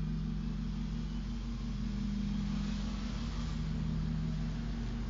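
City street traffic noise: a steady low hum with a general rush that swells slightly about three seconds in.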